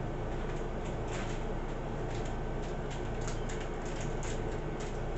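Latex-gloved fingers handling and greasing a small plastic gear shaft, making faint scattered rubbing clicks, over a steady low hum.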